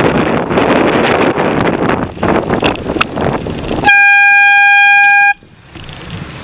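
Wind rushing over the microphone with road noise, then about four seconds in a cyclist's air horn sounds one loud, steady, high note for about a second and a half as a warning, cutting off sharply.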